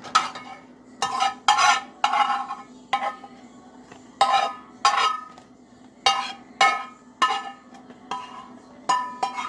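A spoon scraping and knocking against a metal pot, about a dozen strokes, some leaving a short metallic ring, as scrambled eggs are scooped out. A faint steady low hum sits underneath.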